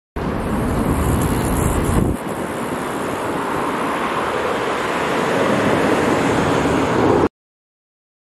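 Steady road traffic noise, with a heavy wind rumble on the microphone for the first two seconds that drops away abruptly. It cuts in just after the start and cuts off suddenly about a second before the end.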